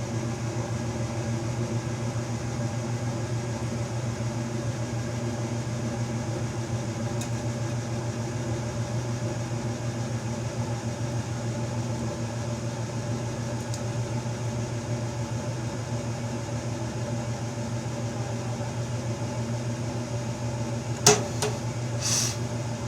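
Steady mechanical hum of a running motor, like a fan or blower, holding one pitch throughout. Near the end a sharp click, then a brief hiss about a second later.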